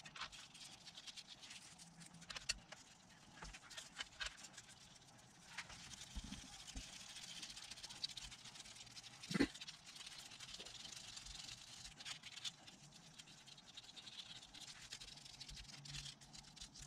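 Faint, scattered clicks and light metallic taps from an oil pump and its bolts being fitted by hand to an engine block. One sharper click comes about nine seconds in.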